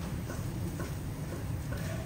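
Faint regular ticking, about two ticks a second, over a steady low rumble.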